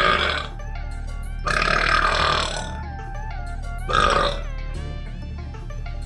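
A person belching loudly: a burp ending just after the start, a longer one about a second and a half in, and a short one about four seconds in, over background music.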